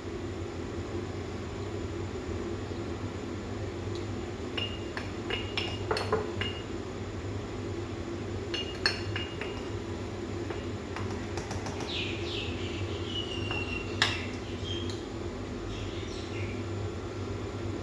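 Cups, glassware and spoons clinking and knocking now and then over a steady low hum, with a few short chirps around the middle.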